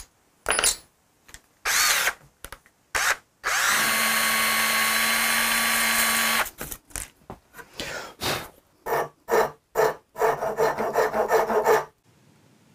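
Cordless drill motor started in short bursts, then running steadily at one pitch for about three seconds, then pulsed in a string of quick trigger bursts that run together near the end before stopping abruptly.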